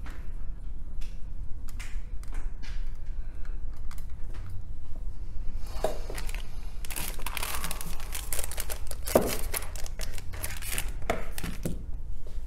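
Small clicks and taps of phone parts being handled on a workbench, with a longer stretch of rustling about six seconds in that lasts some five seconds. A steady low hum runs underneath.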